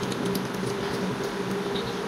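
A steady mechanical hum with a low, even tone, and a few faint soft clicks of eating by hand in the first half second.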